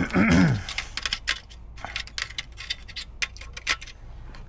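A short, loud sound falling in pitch right at the start, then a run of irregular light clicks and clinks from hand tools and suspension parts being handled.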